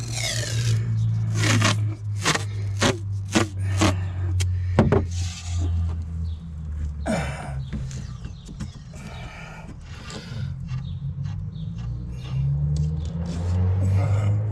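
Masking tape being ripped off the roll in several quick pulls during the first five seconds, over a steady low hum.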